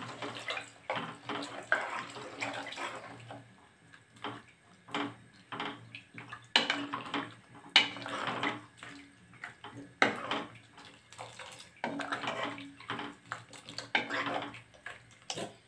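Water poured into a pot of sambar, then a metal ladle stirring the liquid: repeated sloshing strokes with the ladle scraping and knocking against the side of the metal pot.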